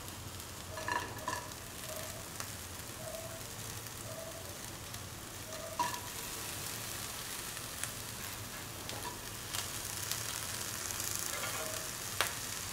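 Dry shrimp sizzling as they are sautéed in a hot pan, with a steady hiss and scattered clicks of a utensil stirring them.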